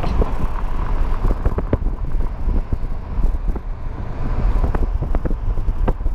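Road noise of a moving car heard from inside the cabin: a steady low rumble of tyres and engine, with a scatter of light clicks and knocks.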